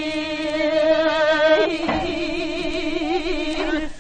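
Female voice singing jireum sijo, Korean classical sung poetry, on an early Victor gramophone record. She holds one long, steady note, then shifts pitch just before two seconds in and sways it in wide, slow vibrato, tailing off near the end.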